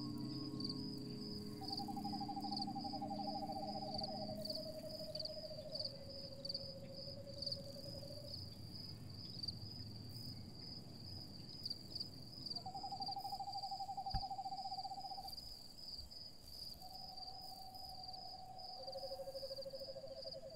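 Quiet ambient film score: a low drone fading out over the first few seconds, then owl-like hooting tones, three long wavering notes each stepping down in pitch, heard twice, over a steady high pulsing chirp like an insect.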